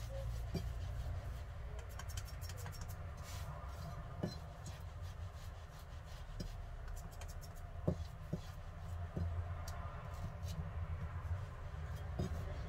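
Faint scraping and a few light taps of a chef's knife blade against a soft cottage-cheese patty and the floured silicone mat as the patty's edges are shaped. A low steady hum runs underneath.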